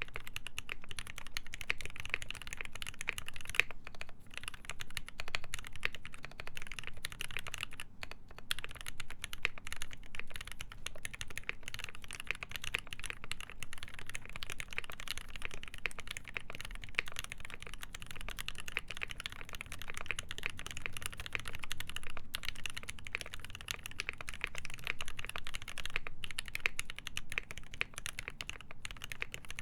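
Continuous fast typing on a mechanical keyboard with lubed linear switches (ZealPC Tealios) in a brass-plated, foam-filled case. It is a dense stream of keystroke clicks, with a few brief pauses.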